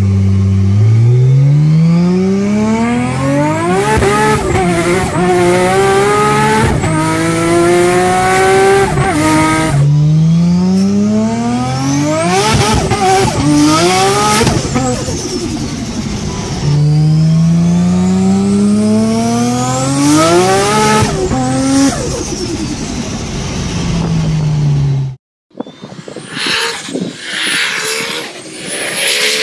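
Nissan Skyline R34 GT-R tuned to about 1000 hp, heard from inside the cabin under hard acceleration: the engine note climbs steeply through the gears in three long pulls, dipping briefly at each shift. Near the end the sound cuts to a quieter car engine further off.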